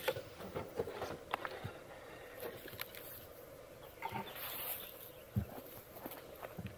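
Traxxas TRX-4 Defender RC rock crawler climbing over rocks: a faint steady whine from its electric motor and gears, with scattered clicks and knocks of tyres and chassis on stone.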